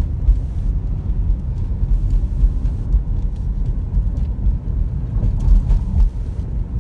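Car cabin noise while driving slowly: a loud, uneven low rumble, with a few faint clicks.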